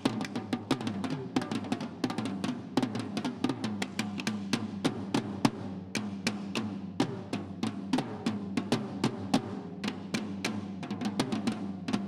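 Percussion duet on snare drums and toms played with sticks: fast, irregular strokes traded between the two drummers, with a low drum tone sustaining under the hits.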